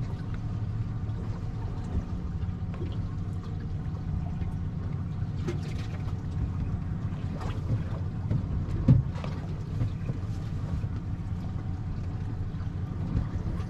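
A boat's engine idling with a steady low hum, with a few faint clicks and one sharp knock about nine seconds in.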